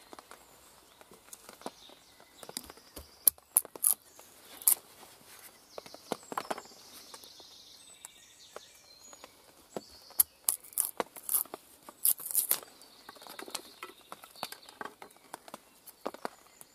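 Bushtool knife splitting thin kindling sticks lengthwise along the grain, giving scattered sharp wooden cracks and clicks, thickest a little past halfway.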